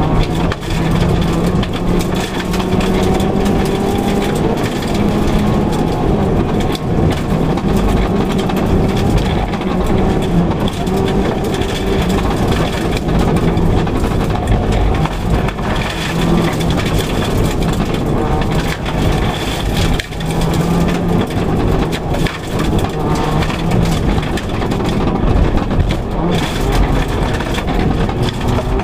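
Inside a 2004 Subaru Impreza WRX STI rally car at full stage speed on gravel: the turbocharged flat-four engine working hard, its pitch rising and falling with throttle and gear changes. Under it runs loud tyre and gravel noise, with stones clicking against the underbody.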